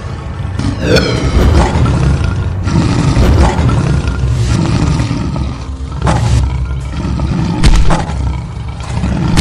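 Lion roaring and growling sound effect, loud and continuous, with a few short sharp sounds in the second half.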